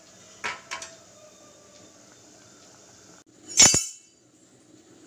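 A metal lid is set down on a metal cooking pot with one loud, ringing clink about three and a half seconds in, after two light clicks near the start.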